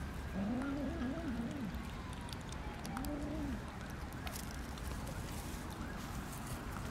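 A dove cooing: a phrase of several rising-and-falling notes about half a second in and a single coo around three seconds in. Faint small clicks of cats eating wet food underneath.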